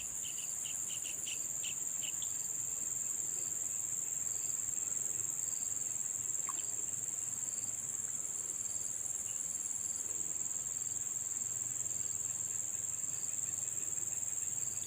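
Insects, crickets or cicadas, trilling steadily in a high continuous drone, with a second, softer call pulsing evenly under it.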